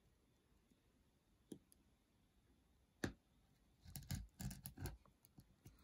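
Rotary cutter cutting through sequin fabric: a sharp click about three seconds in, then a quick run of clicks as the blade crosses the sequins.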